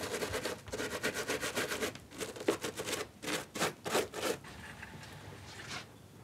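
Football boot being scrubbed by hand in quick rubbing strokes, dense at first and then more spaced out, stopping about four seconds in.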